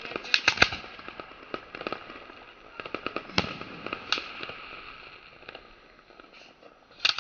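Aerial fireworks bursting overhead: a rapid series of sharp bangs over steady crackling. The loudest single bang comes about three and a half seconds in, the sound thins out after about five seconds, and a fresh cluster of bangs starts near the end.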